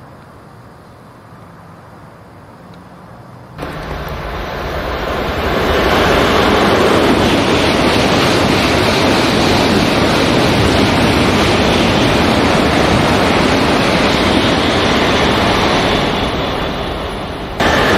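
Shinkansen bullet train passing through the station at high speed without stopping: a loud, steady rush of wind and wheel noise that comes in suddenly a few seconds in and eases off near the end as the last car goes by.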